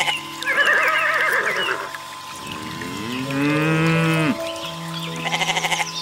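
Goat bleating and a cow mooing over background music. There is a wavering bleat near the start, one long moo that rises in pitch, holds and cuts off abruptly in the middle, and a quavering bleat near the end.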